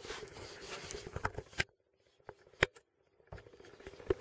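Wooden rolling pin rolling out pastry on a floured wooden board: soft scraping with a few light knocks, broken by about a second and a half of near silence midway.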